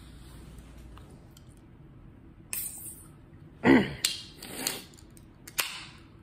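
An aluminium energy-drink can being opened by its pull tab: a few sharp metallic clicks and cracks, the loudest about halfway through.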